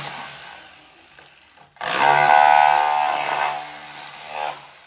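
Electric angle grinder working the tiled stair treads. Its whine dies away, the tool starts up again sharply about two seconds in, runs steadily for a couple of seconds, then spins down near the end.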